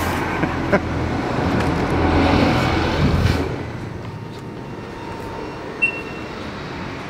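Road traffic rumbling for the first three seconds, then dropping to a quieter indoor hush. About six seconds in, a ticket-gate card reader gives one short high beep as a card is tapped on it.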